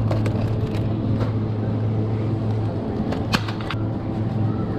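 Steady low hum of a supermarket's refrigerated display shelves, with light plastic clicks and crackles as packaged food and a plastic milk jug are handled, the sharpest cluster of clicks a little past three seconds in.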